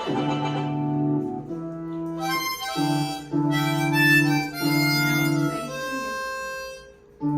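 Harmonica playing a short run of held chords, each lasting about a second before moving to the next, then fading out near the end.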